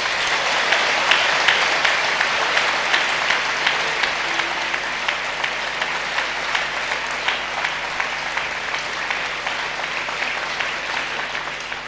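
Large audience applauding, a dense sustained clapping that starts right after the speaker's line and dies away near the end.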